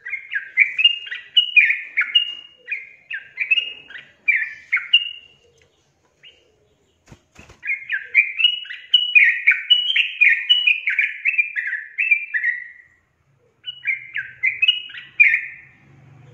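Yellow-vented bulbul singing: runs of quick, bubbly whistled notes, each sliding in pitch. It breaks off for about two seconds midway and briefly again later.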